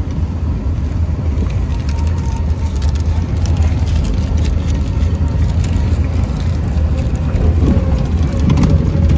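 Steady, loud low rumble of vehicle and road noise, with scattered crackles.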